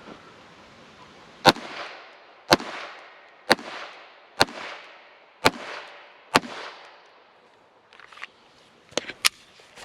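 Six single shots from a Taurus TX22 .22 LR semi-automatic pistol, about one a second, each with a short echo, fired at a pumpkin to shoot out its mouth. A few quieter sharp clicks follow near the end.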